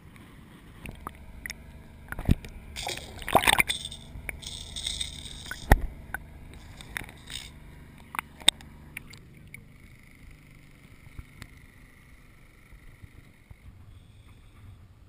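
Lake water splashing and gurgling against a GoPro camera housing that is dipped in and out of the water at a boat's side, with scattered sharp knocks and splashes. After about nine seconds it settles to a quieter, steadier sound.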